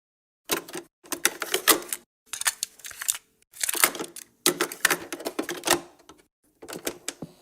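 Rapid typing clicks in about six bursts of keystrokes with short pauses between them, starting about half a second in.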